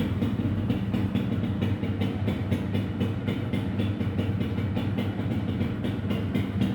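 Yamaha Royal motorcycle engine idling steadily with a fast, even beat.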